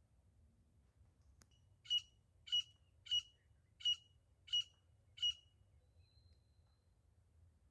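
Grey francolin (desi teetar) hen calling: six short, sharp, evenly spaced calls, about one every two-thirds of a second, preceded by a single sharp click.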